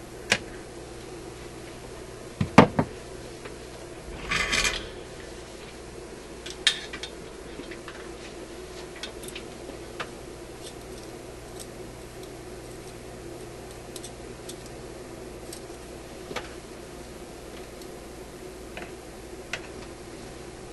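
Metal tools clinking and tapping against the steel chassis and wire leads of a vintage tube radio while a capacitor is being fitted: a loud double clink about two and a half seconds in, a short scraping rustle about four seconds in, then scattered light ticks, over a steady low hum.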